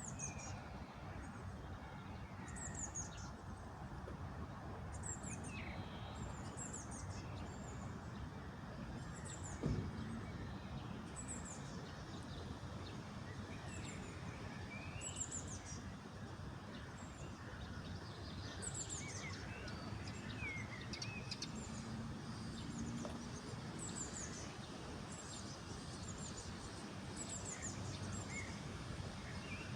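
Several small birds chirping, with short high falling notes repeating every second or two and a few lower glides, over a steady low background rumble. A single sharp thump about a third of the way through.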